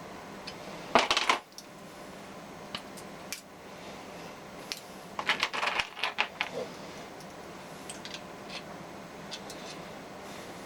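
Metal parts clinking and rattling against each other: a short cluster of sharp clinks about a second in, a longer rattling run of clinks about halfway through, and a few light ticks, over a steady low hum.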